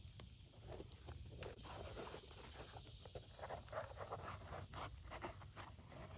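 Faint, irregular crackling and rustling of a freshly peeled sheet of tree bark being handled and rolled up, over a steady high hiss.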